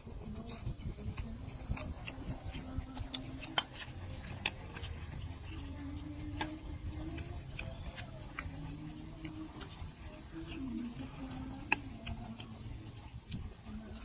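Steady high-pitched insect chorus, like crickets, with scattered faint clicks and ticks.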